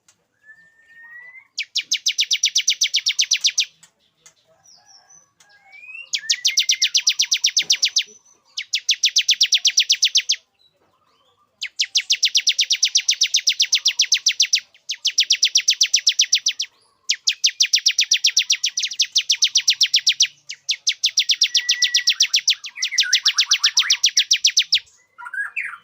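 Male ciblek (bar-winged prinia) singing: eight bursts of very rapid, evenly repeated high notes, each lasting about two to three seconds with short pauses between, some led in by a short rising whistle. This is the male's song, used as a lure to bring females into breeding condition.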